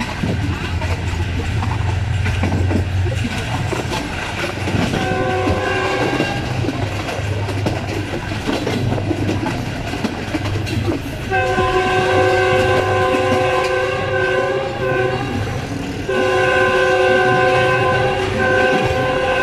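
Passenger train running fast on jointed track, with wheels rumbling and clattering over the rail joints, while the GEU 20 diesel locomotive's multi-tone horn sounds. The horn gives a short blast about five seconds in, then long blasts from about eleven seconds on, with a brief break near sixteen seconds.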